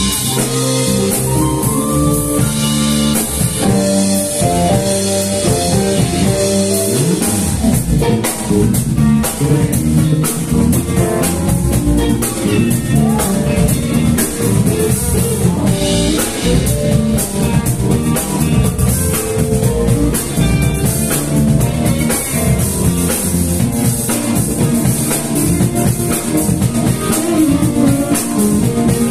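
Live band playing an instrumental number: electric guitars, bass guitar, drum kit and electronic keyboard together, with no singing.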